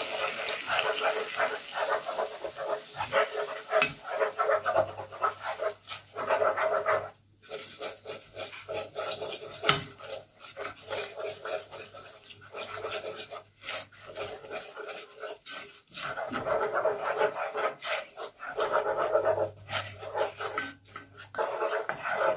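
Wooden spoon scraping and stirring a butter-and-flour roux around a nonstick saucepan in quick, rhythmic rasping strokes, with short pauses; this is the flour being cooked in the butter for a béchamel sauce. A faint sizzle of the hot butter sits under the strokes at first.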